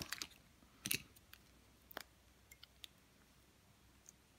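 Light clicks and taps of small plastic nail-gel jars being handled, a sharper click about a second in and a few fainter ticks around the middle, then near quiet.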